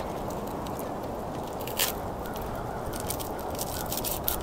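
Small knife and onion handling sounds as onion pieces are cut and pushed onto a wooden skewer: faint scrapes and clicks, a sharper click about two seconds in and another near the end, over a steady low rush.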